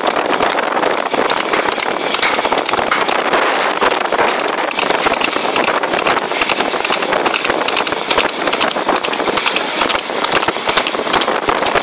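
Horse galloping on a road, its hooves clattering in a quick, uneven run of sharp beats over a steady rushing noise.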